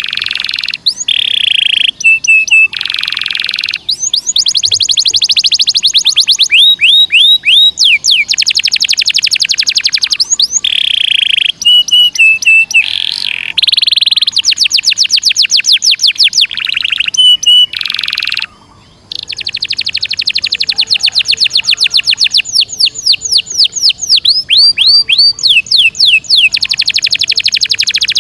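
Domestic canary singing without letup in long, very fast rolling trills and repeated whistled notes, the chatty rolling song kept for training young canaries. One short pause comes about two-thirds of the way through.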